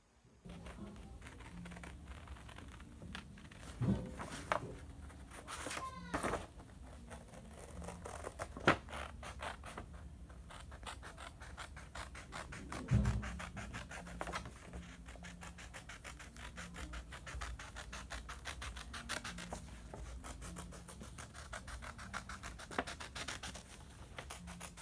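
Scissors snipping through a sheet of paper, cutting out a traced circle: a continual run of small snips and scratchy paper sounds, with a few louder clicks along the way.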